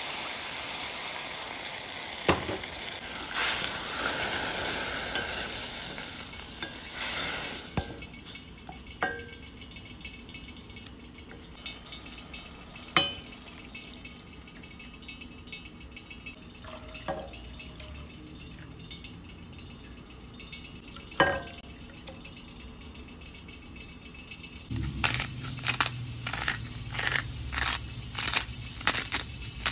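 Caramelized onions sizzling in a stainless steel pot as liquid hits the hot pan, the hiss fading away over the first several seconds. A few sharp clinks of a utensil against the pot follow. Near the end a pepper mill grinds black pepper with quick crackling clicks.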